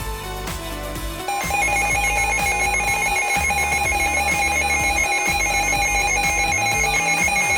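Emergency Alert System attention tone: a loud, steady electronic alert tone starts about a second in and holds, with music underneath.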